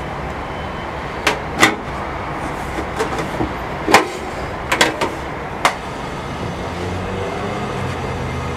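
Things being rummaged through and handled in a drawer: a few short sharp knocks and clicks over a steady background rumble, with a low hum building near the end.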